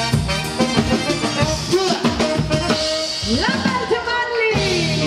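Live dance band playing an upbeat Latin-style number, with a steady drum kit beat. About three seconds in, a run of falling, sliding notes comes in, and the drums drop out under held chords near the end.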